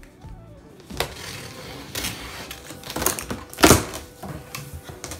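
Cardboard box being opened by hand: tape slit and flaps pulled apart, giving a few short, sharp scrapes and rips of cardboard, the loudest and longest about three and a half seconds in.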